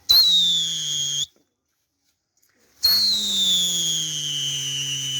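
A pigeon keeper whistling to send his flock up. Two long, shrill whistles, each sliding a little lower in pitch: one about a second long near the start, and a longer one starting about three seconds in.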